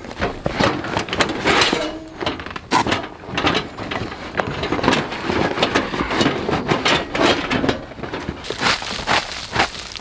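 Canvas tote bag rustling as it is set down and opened, with repeated knocks from the heavy stainless steel Snow Peak fire stand inside it and dry leaf litter crunching underfoot.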